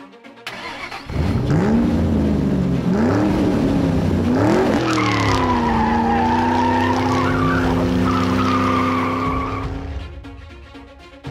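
Car engine revving up in pitch through about three gear changes, then a long tyre squeal over the engine for about five seconds, both fading away near the end.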